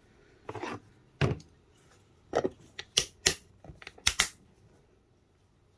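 Food storage containers handled on a table, their lids snapped and clicked shut: a series of about seven sharp clicks and knocks, coming quickest between about three and four and a half seconds in.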